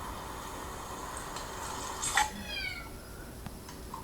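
A kitten meows once, a short call falling in pitch, about two seconds in.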